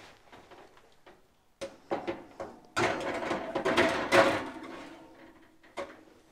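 Oven door of an electric range opened with a few clicks, then a metal baking sheet slid and scraped onto the oven rack, a rattling metal-on-metal scrape of about two seconds that fades out.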